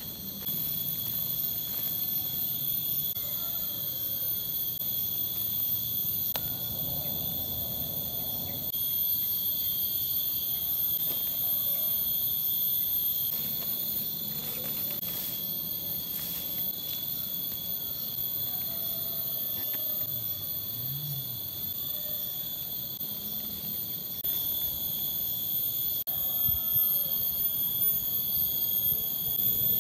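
Steady, high-pitched insect chorus that holds several unbroken shrill tones throughout, with soft irregular rustling of tarp fabric and gear being handled underneath.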